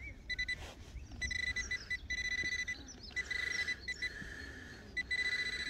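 Metal detector giving a steady high target tone with a few overtones, breaking off briefly and coming back about once a second, over the detectorist digging at the signal.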